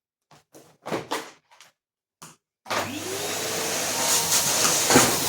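A few short knocks and clicks of handling, then a vacuum cleaner is switched on about two and a half seconds in. Its motor spins up with a rising whine and then runs steadily.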